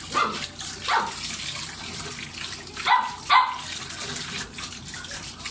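Tap water running steadily onto a fan guard being rinsed by hand, while a dog barks four short times, the last two loudest.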